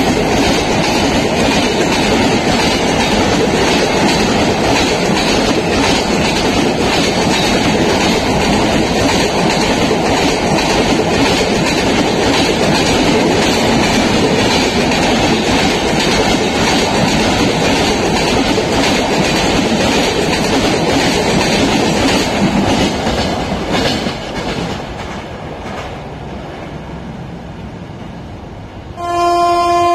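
Passenger express coaches passing close at speed, wheels clattering over the rail joints in a dense, rapid rhythm. The clatter falls away a little over 20 seconds in as the train clears. About a second before the end, the horn of an approaching WAP-7 electric locomotive sounds as one steady multi-tone blast.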